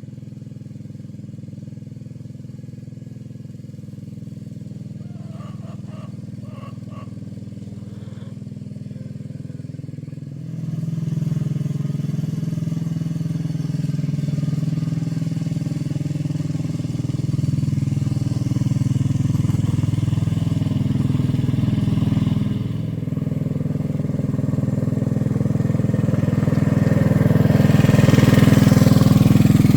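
Tractor engine running steadily. It gets louder about a third of the way in, dips briefly later, and is loudest near the end, as it works under load or comes closer.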